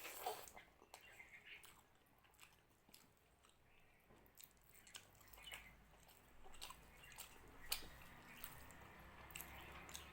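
Someone eating rice and mutton curry close to the microphone: quiet wet chewing and squishy mouth sounds, broken by scattered sharp clicks, the loudest near the start and about two thirds of the way in.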